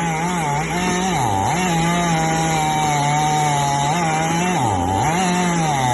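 Chainsaw engine running at high revs, its pitch dipping briefly twice.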